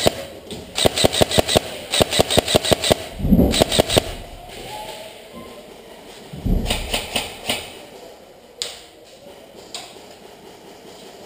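Airsoft gun firing full-auto bursts of about ten shots a second. There are several short bursts in the first four seconds and another about six and a half seconds in, with a few dull knocks.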